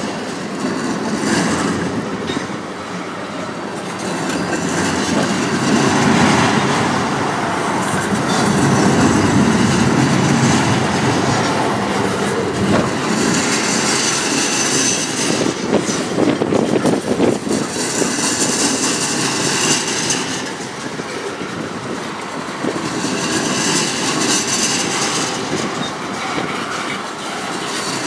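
Freight train's tank cars and flatcars rolling past, steel wheels clacking over the rail joints, with stretches of high-pitched wheel squeal that come and go.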